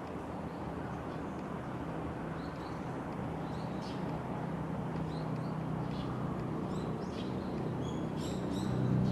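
Birds chirping in short high calls over a steady low engine hum, which grows louder near the end.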